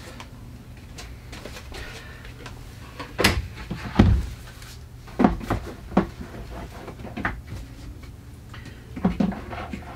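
Knocks and clunks from a lower kitchen cabinet as items are put away inside it and the cabinet is handled: a handful of separate bumps, the loudest about four seconds in.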